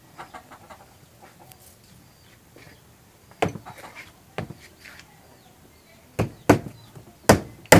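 Hammer driving small nails into a plywood box bottom: a couple of taps about halfway through, then four sharp blows in quick succession in the last two seconds.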